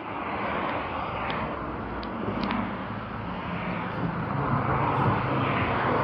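Steady rushing of wind on the microphone and road noise while riding a KingSong electric unicycle along a street, growing louder about half a second in.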